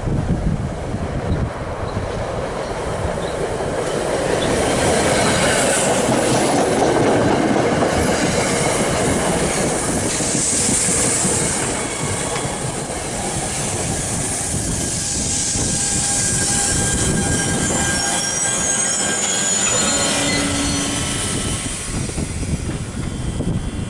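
Commuter train running through the station, its steel wheels rumbling and clicking over the rails with high squealing from the wheels partway through.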